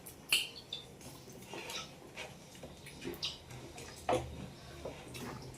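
Eating by hand from a plate of rice and fish: scattered soft clicks and smacks, with a sharper one just after the start and another about four seconds in.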